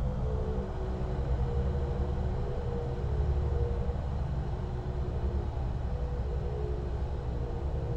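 Steady low rumbling drone with a few faint held tones that shift slowly above it, the kind of ambient sound design laid under a tense horror scene.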